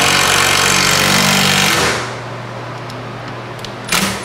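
Cordless impact driver hammering a lag bolt into a wall stud for about two seconds, then stopping, with a second short burst near the end.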